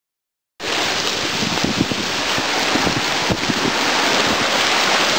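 Storm wind buffeting the microphone over surf washing in around pier pilings, a loud steady rush with irregular low thumps of wind. It starts suddenly about half a second in, after silence.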